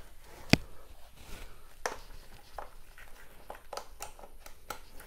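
A few sharp clicks and light knocks from handling a plug, cable and fittings, the loudest about half a second in, then smaller ones spread through the rest.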